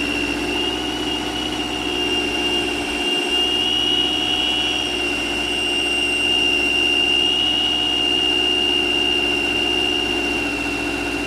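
Vehicle engine running at a steady idle with a bearing whistling: one steady high-pitched whistle that wavers slightly in pitch over the low hum of the engine, the sign of a worn bearing.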